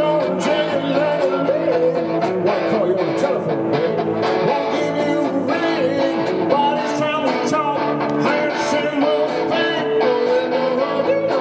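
Live rock band playing, with electric guitars, bass, congas and drum kit keeping a steady beat, and a man singing into a microphone.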